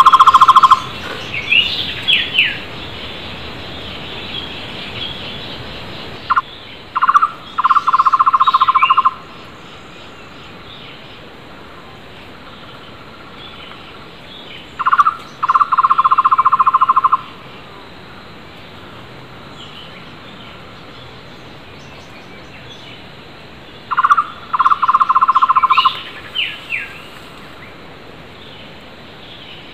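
Takur tohtor barbet calling: a short note, then a fast trill of even pulses at a low pitch, lasting about two seconds and repeated three times, roughly every nine seconds. Higher short whistled chirps from other birds follow some of the calls.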